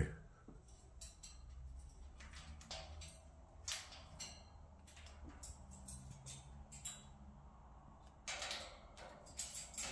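Quiet room with faint scattered clicks and a few soft rustles, the longest a little past eight seconds in, over a low steady hum.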